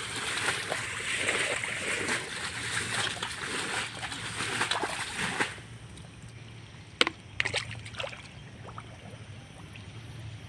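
Water being bailed and splashed out of a shallow pond: dense splashing and sloshing that stops abruptly about five and a half seconds in, followed by a few separate splashes a second or two later.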